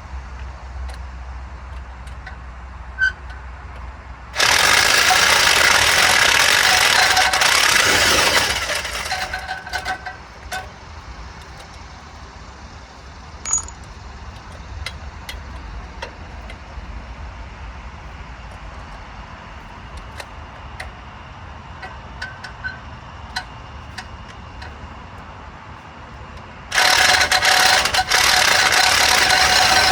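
A handheld power tool runs hard in two bursts of about four seconds each, one a few seconds in and one near the end, with light metallic clinks of tools and parts in between.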